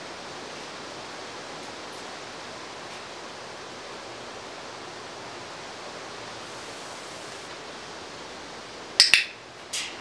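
A steady hiss throughout. About nine seconds in, a training clicker gives a sharp double click (press and release), followed a moment later by a short burst of hiss.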